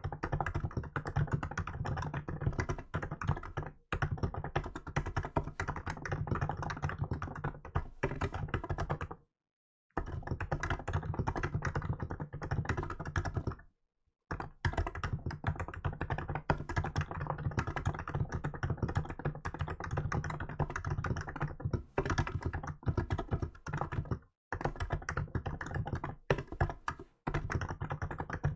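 Continuous fast typing on a Hansung GK868B electro-capacitive (contactless) keyboard: a dense stream of keystrokes, stopping briefly about nine and a half, fourteen and twenty-four seconds in.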